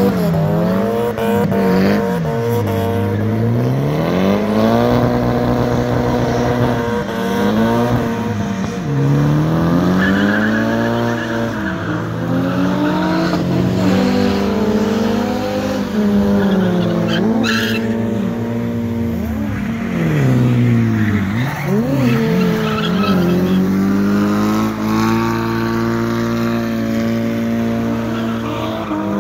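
Drift cars sliding with tyres squealing, their engines revving up and down over and over as the throttle is worked, at times two engines at once. There is a brief sharp crack about two thirds of the way through.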